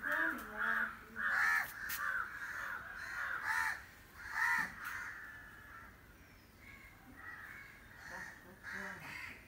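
A bird calling over and over in short repeated calls, with several loud calls in the first five seconds and fainter ones after.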